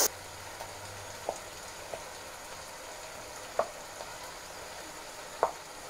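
Food sizzling steadily in a frying pan on the stove, with a few light knocks of a knife on a plastic cutting board as ham is cut, the loudest near the end.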